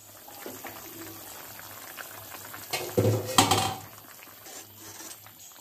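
Chicken and potato curry simmering in an open pan with a soft, steady bubbling, then a loud clank of metal cookware about three seconds in.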